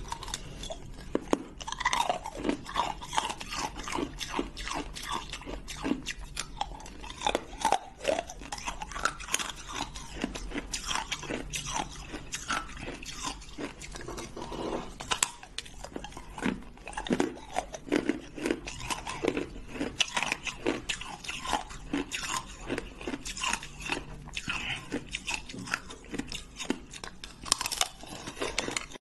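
Hard freezer ice being bitten out of an ice-cube tray and chewed: continuous dense crunching with many sharp cracks.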